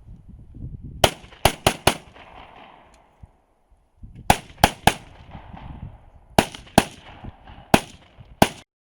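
Rapid semi-automatic gunshots from a competitor shooting an IPSC rifle or pistol-calibre carbine stage: a string of four quick shots, then three, then two pairs, with short pauses between the groups. The sound cuts off suddenly near the end.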